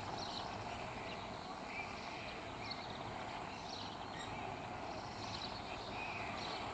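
Steady outdoor background noise with small birds chirping briefly and repeatedly through it.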